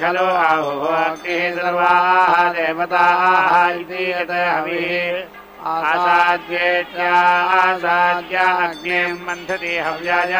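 Vedic mantras chanted in Sanskrit in a continuous, melodic recitation over a steady low tone.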